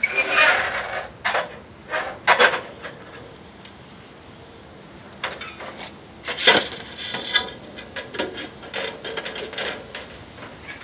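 Aluminum siding sheet scraping and rubbing against a sheet-metal brake as it is slid in and positioned for bending, in irregular bursts, with a lull of a couple of seconds in the middle.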